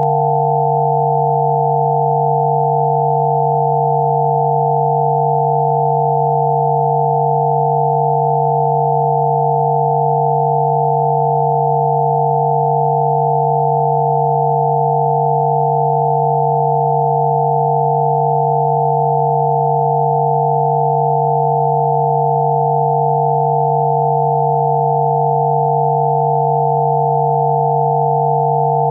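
A 'healing frequency' track of electronic sine-wave tones sounding together at several fixed pitches, one low and a group higher up, holding steady and unchanging.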